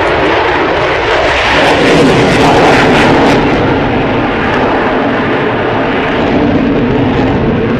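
Loud jet noise from an F-22 Raptor's two Pratt & Whitney F119 turbofans as the fighter manoeuvres in the air, loudest about two to three seconds in.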